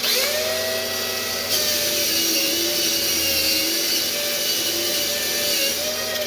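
An electric power-tool motor spins up, runs for about six seconds with its pitch wavering under load, then winds down.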